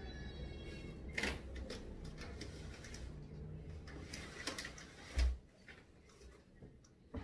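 A window being closed: a few clicks and knocks, then a heavy thump a little over five seconds in as it shuts, after which the low rumble from outside drops away. One more click follows near the end.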